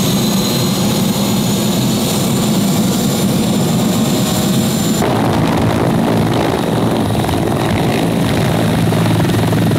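Turbine helicopter running with its main rotor turning: a high turbine whine over a steady rotor drone. About halfway through, the whine drops away and the low, pulsing beat of the rotor comes forward as the helicopter lifts off.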